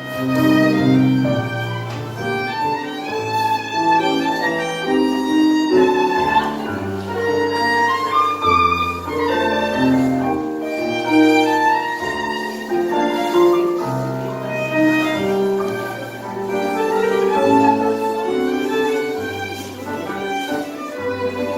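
Live tango music from a small ensemble, a violin carrying the melody over sustained low bass notes.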